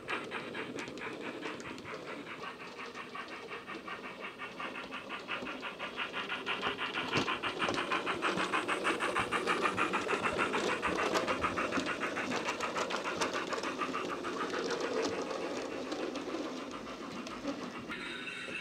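Steam exhaust chuffs of the 15XX-class pannier tank No. 1501, played back as a DCC sound file through the small built-in speaker of a running Rapido 15XX model locomotive. It is a steady, rapid chuffing rhythm that grows louder through the middle and eases toward the end.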